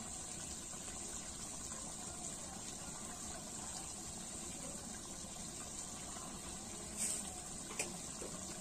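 Chicken curry simmering and bubbling in a large iron kadai over a wood fire, a steady watery bubbling, with two sharp clicks near the end.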